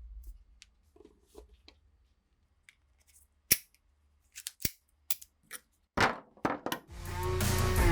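A dozen or so sharp metallic clicks and snaps, irregularly spaced, with the loudest about three and a half seconds in: the action of a restored old pistol being worked by hand. Music fades in near the end.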